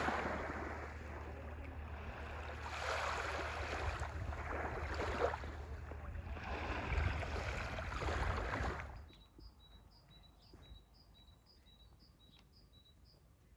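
Small waves washing up on a sand-and-shell beach, each wash swelling and fading every two to three seconds. About nine seconds in the surf stops abruptly, leaving a much quieter background with faint, short high chirps repeating a few times a second.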